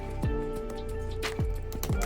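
Background music: an electronic track with a held synth note, deep bass hits that drop in pitch, and sharp percussion hits.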